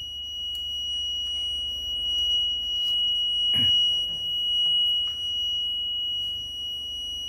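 A continuous high-pitched electronic buzzer tone holding one steady pitch, with a soft knock about three and a half seconds in.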